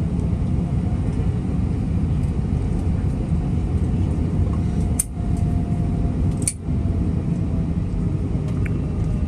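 Steady low rumble of an Airbus A320's engines and airframe heard from inside the passenger cabin, with two short sharp clicks about five and six and a half seconds in.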